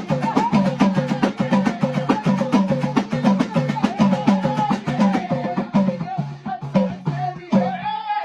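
Moroccan folk music: fast, dense drum and hand percussion strokes under a wavering melodic line and a steady low drone. The percussion thins out after about six seconds, leaving the melody.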